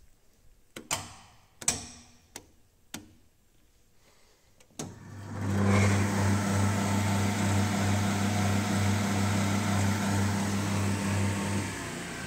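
Control switches on a Robland 220 V combination woodworking machine clicking several times, then about five seconds in its motor starts, comes up to speed within a second and runs steadily with a low hum and whir. Near the end the hum stops as the machine is switched off and begins to wind down.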